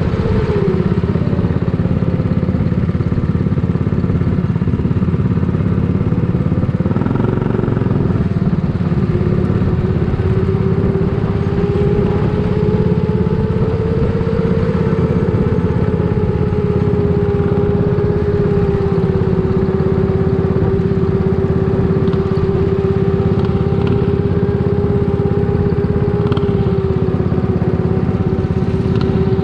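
Racing kart engine running hard and steadily, its pitch dipping briefly about a second in and again about seven seconds in, then climbing slowly back.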